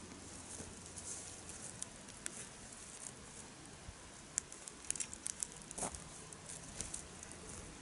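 Wood campfire crackling, with scattered sharp pops that come thickest about halfway through.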